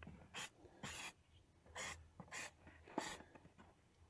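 Aerosol can of silicone spray hissing in about six short bursts, spaced irregularly.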